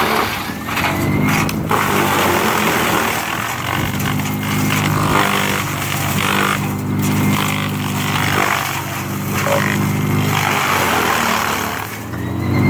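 A large engine running with a steady hum that swells and eases a few times, under a broad hiss, typical of heavy equipment working.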